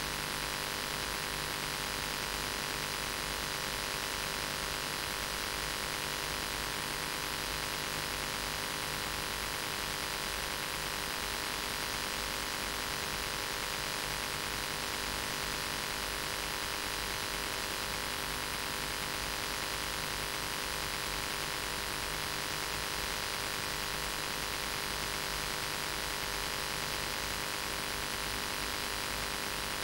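Steady hiss with a constant electrical hum: recording noise on the audio track, with nothing else heard.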